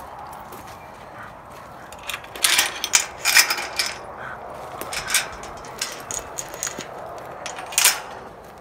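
Irregular crunching and rustling close to the microphone, loudest in a cluster about two to three and a half seconds in and again near the end: footsteps through frosty grass and ground litter.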